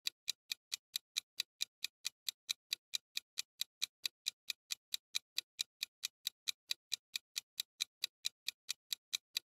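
Clock-ticking sound effect, a fast, even tick about five times a second, marking a countdown timer.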